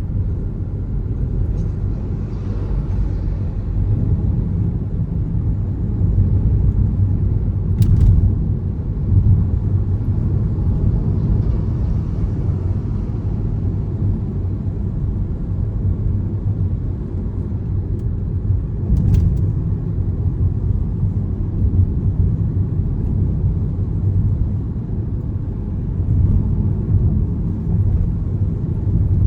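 Hyundai Alcazar on the move: a steady low road and engine rumble, with two sharp rattling knocks, one about a quarter of the way in and another about two-thirds of the way through. The knocks are the kind of rattle the car is being shown for.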